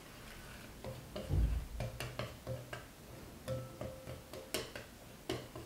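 Chopsticks stirring flour into a beaten egg mixture in a porcelain bowl, clicking and tapping against the bowl at an irregular pace, with one dull thump a little over a second in.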